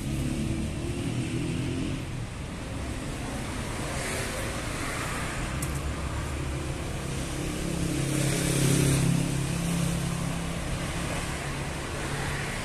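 Street traffic: a steady wash of car engines and tyre noise, with one vehicle's engine growing louder past the middle and then fading away.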